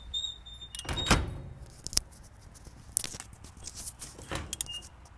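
Door safety microswitches on a Garland electric convection oven clicking and rattling several times, the loudest about a second in, as the door cam pushes their rollers. The clicks mean the switches now make enough contact to cut the heat and fan when the doors open.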